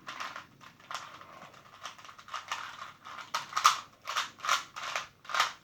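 Plastic Rubik's cube being twisted randomly to scramble it: a run of irregular clicking and rattling turns, fainter at first, then louder separate clacks about two or three a second in the second half.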